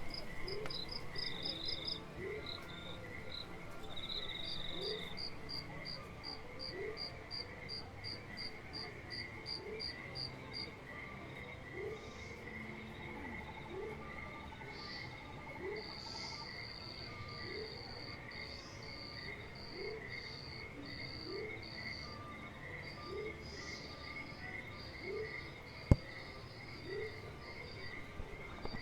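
Crickets and other insects chirping in several overlapping pulsed trills at different pitches, a theme-park ambient sound effect of night insects. A short low rising call repeats about every second and a half, and there is a single sharp click near the end.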